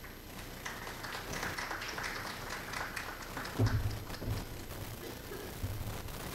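Audience applauding, a dense patter of clapping that dies away after about three seconds. A few dull thumps come just after it.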